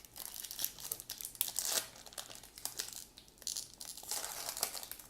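Plastic baseball card pack wrapper being torn open and crinkled in the hands, a run of irregular crackles and rustles.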